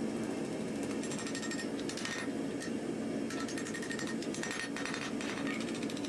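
A fast, steady mechanical rattle over a continuous low hum, from a workshop machine.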